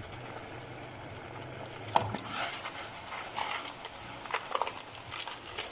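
A dry instant noodle block dropped into a stainless steel pot of boiling water about two seconds in, followed by the water bubbling and crackling around it, over a faint steady hum.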